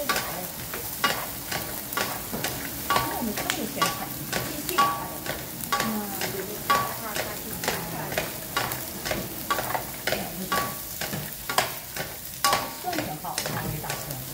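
Vienna sausages and sliced garlic sizzling in oil in a frying pan, tossed with two wooden spatulas that scrape and knock against the pan again and again.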